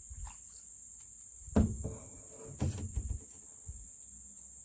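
Steady high-pitched chorus of crickets and other insects, with a few dull knocks from gear being handled in the canoe; the loudest knock comes about a second and a half in.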